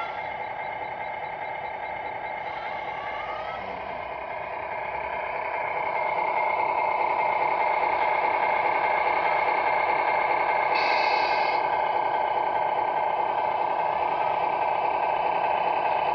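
Electronic diesel-engine sound from a radio-controlled model truck's sound unit, running steadily through a small speaker and getting louder about five seconds in. A short hiss comes about eleven seconds in.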